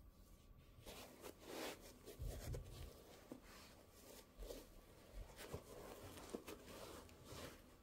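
Faint rustling with scattered light knocks and clicks from sneakers and their packaging being handled, starting about a second in.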